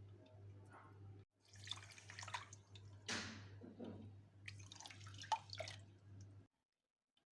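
Water pouring and dripping in three short spells over a low steady hum, cutting off abruptly near the end.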